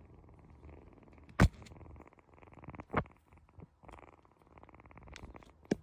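A domestic cat purring steadily close to the microphone. Three short sharp knocks cut through the purr, the loudest about one and a half seconds in, another about three seconds in and one near the end.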